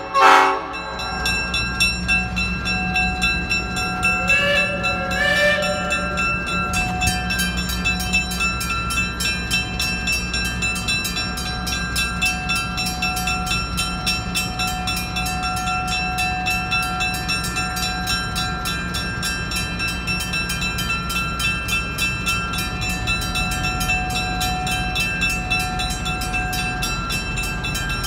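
Railroad crossing signal display activated: the Bryant Zinc mechanical crossing bell rings with rapid, even strikes, steady from about seven seconds in, over the low steady running of the departing locomotive. The train's horn sounds in short blasts at the start and again about four and five seconds in.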